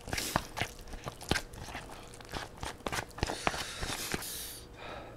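A spoon tapping and scraping against plastic takeout containers as food is stirred and scooped, a run of sharp clicks with a longer rustling scrape near the end.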